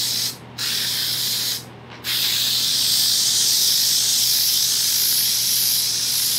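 Aerosol can of spray contact adhesive hissing from its nozzle, stopping briefly twice in the first two seconds and then spraying without a break.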